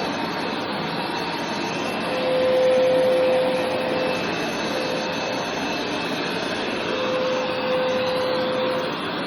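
Hoover carpet cleaner's motor running steadily over carpet, a rushing whir with a hum that strengthens and fades as it is pushed back and forth, loudest about two to three seconds in.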